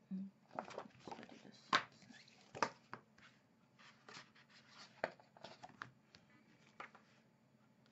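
Paperback picture books being handled: pages flipped and rustling, and a thin book slid and laid onto a wooden table and patted flat, with several sharp taps, the loudest about two seconds in.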